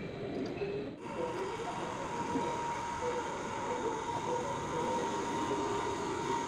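Steady running noise of workshop machinery with a thin, even whine, changing abruptly about a second in.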